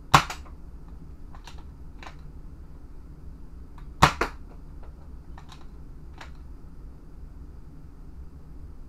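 Modded Nerf Rival Knockout blaster, air restrictor removed and running stock springs, firing twice about four seconds apart: each shot a sharp snap followed at once by a second click. Fainter clicks between the shots come from the blaster being handled and primed.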